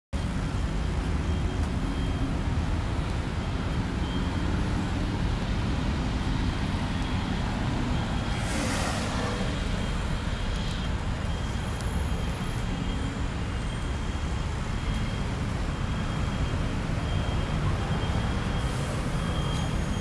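Steady rumble of road traffic from a busy intersection, with a vehicle hissing past about eight to ten seconds in and another near the end.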